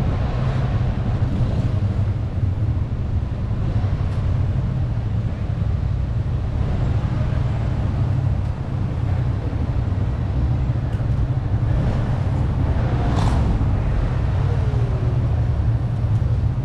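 Street ambience carried by a steady low rumble, with a brief hiss about thirteen seconds in.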